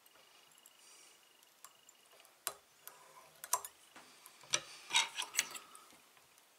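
Small fly-tying tools clicking and tapping at the vise while the thread is whip-finished. The sharp ticks come singly at first, then cluster between about four and a half and five and a half seconds in.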